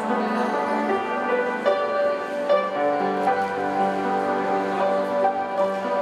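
Piano playing a slow, gentle piece with long held notes.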